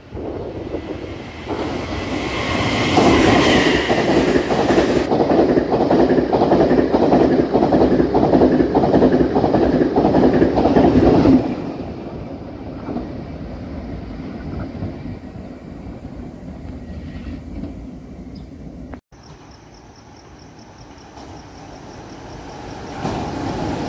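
Taiwan Railways PP Tze-Chiang push-pull express passing at speed: a loud rush of noise with rapid, regular clacking of wheels over the rail joints for about ten seconds. It drops off suddenly as the train clears, leaving a fading rumble. After an abrupt break, a quieter rumble builds again near the end.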